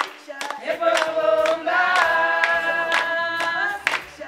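A group of voices, mostly women's, singing a song together while clapping their hands to a steady beat.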